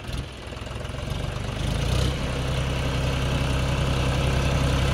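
John Deere 5050 D tractor's three-cylinder diesel engine working hard as the 4WD tractor strains to pull its sand-buried rear wheels out. The engine gets steadily louder and steps up about two seconds in, then holds at high revs. A short knock is heard just at the start.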